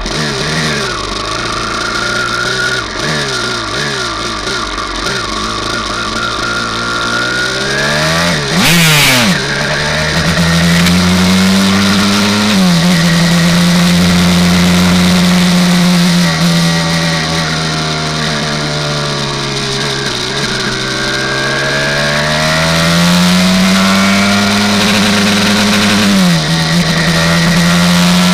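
Honda TRX250R-based 327cc two-stroke single engine in a racing motorcycle, heard from onboard. It is revved unevenly at low speed for the first several seconds, then accelerates hard with a steeply rising pitch about eight seconds in and runs on at high revs. The pitch drops suddenly at upshifts about twelve seconds in and near the end, with an easing-off and climb back up in between.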